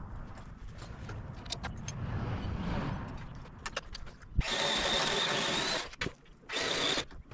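A handheld power saw cutting tree branches runs in two bursts, a longer one of about a second and a half and then a short one, each with a steady high whine. Before it there are low rumbling and scattered clicks, and a single sharp knock comes just before the first burst.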